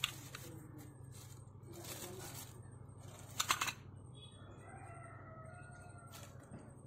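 A knife cutting and scraping at the cocopeat-and-soil wrapping of an air layer on a carambola branch, in short rasping strokes, the loudest about three and a half seconds in. After that a rooster crows for about two seconds.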